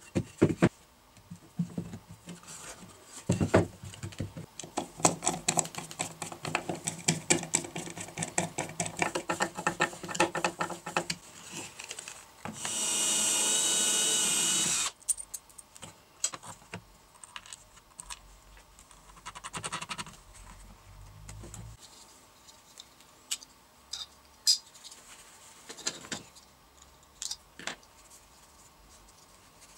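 Cordless drill running steadily for about two and a half seconds as it bores a hole in a wooden board. Before it comes a long run of clicks and knocks from wood and parts being handled on the workbench, and after it a few scattered clicks.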